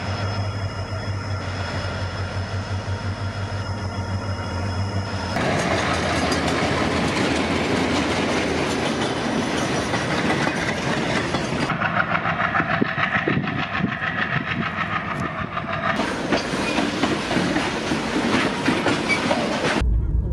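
Diesel freight locomotives running and freight wagons rolling past, the wheels clattering over the rail joints. The sound changes abruptly several times, about five, twelve, sixteen and twenty seconds in, as one train recording gives way to another; the first stretch carries a steady engine sound with a thin high whine above it.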